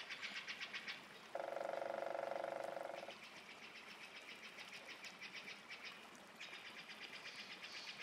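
Rapid, evenly pulsed animal trills, about ten pulses a second: a high trill breaks off about a second in and a lower, louder trill takes over for about two seconds, then the high trill returns, louder again from about six seconds in.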